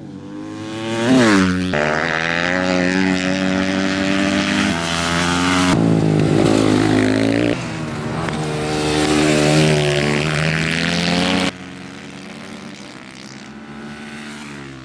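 Supermoto race motorcycles running hard at high revs, one rising then falling in pitch as it passes about a second in. The engine sound changes abruptly several times and is quieter near the end.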